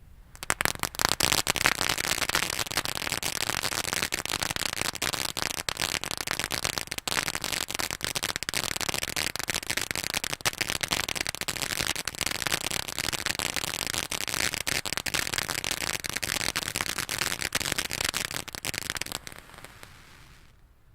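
Crown King firework going off in a dense, continuous crackle of rapid small pops. It starts suddenly and runs for about nineteen seconds before dying away.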